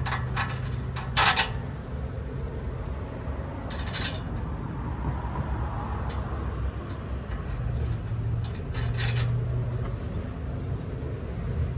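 A few sharp metallic clicks and knocks from bumper hardware and tools being handled: several in the first second and a half, one about four seconds in, and a few more near nine seconds. A steady low hum runs underneath.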